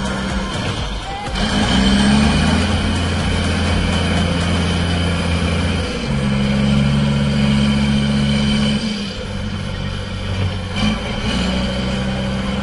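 Heavy machinery engines running steadily with a low hum, the sound switching abruptly three or four times from one engine to another.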